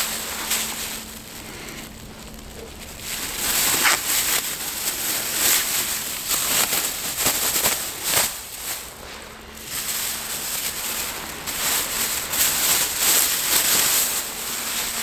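A shot wild duck being dressed by hand: irregular rustling and tearing strokes of feathers and skin being pulled, with brief lulls between bouts.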